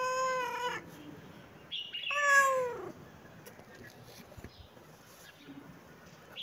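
Tabby-and-white cat meowing: a long, even meow that ends just under a second in, then a second meow about two seconds in that falls in pitch. Another meow begins right at the end.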